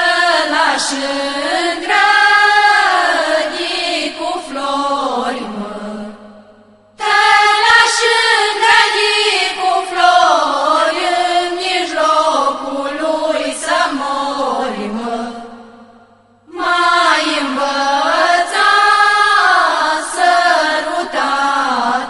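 A women's folk choir singing a traditional Romanian folk song together, without instruments, in three long phrases with short breaks about 6 and 16 seconds in.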